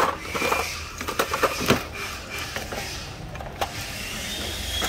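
Hard plastic cordless-tool battery packs clicking and knocking as they are handled and set down: a quick run of sharp clicks in the first two seconds, one more knock a little past the middle, over a faint steady hum.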